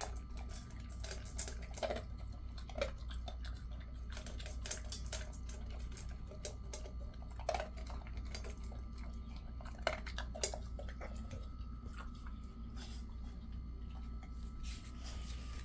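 Jindo dog eating dry kibble from a stainless steel bowl: irregular crunching chews and sharp clicks of kibble and teeth against the metal bowl.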